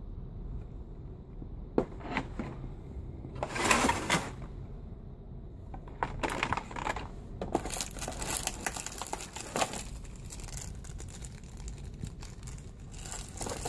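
Handling noise from unboxing a toy quadcopter: clicks, knocks and rustling of the moulded plastic tray, the plastic transmitter and a plastic parts bag. It comes in separate bursts: a sharp click about two seconds in, a louder rustle around four seconds, a longer stretch of crinkling and rattling from about six to ten seconds, and another near the end.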